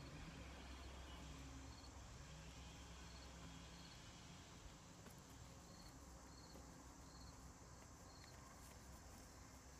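Near silence: faint room tone with a low hum and soft, high chirps repeating every second or so.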